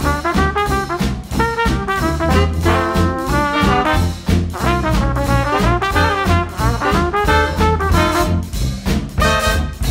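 Background music: a jazzy, swing-style tune with brass instruments over a steady beat.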